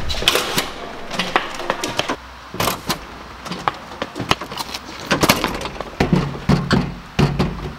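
Fists pounding on a glass-paned metal-framed door, an irregular string of sharp knocks and rattles. A low steady tone comes in about six seconds in.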